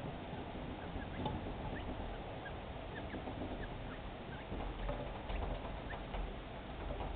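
Two-week-old partridge chicks giving scattered short high peeps, with a few light ticks.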